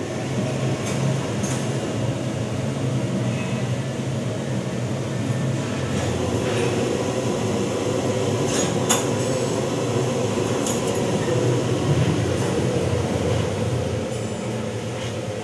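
Laser tube-cutting machine running as it cuts holes in square steel tubing: a steady low hum with scattered sharp metallic clinks.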